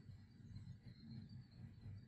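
Near silence: room tone with a faint low rumble and a thin steady high hiss.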